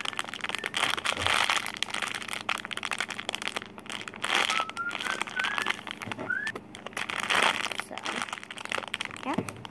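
Crinkling and rustling of plastic packaging being handled, coming and going irregularly, with a couple of faint short rising squeaks near the middle.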